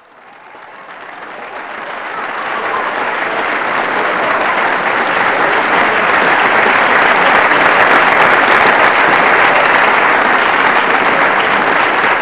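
Audience applauding, fading in from silence over the first few seconds and then holding steady.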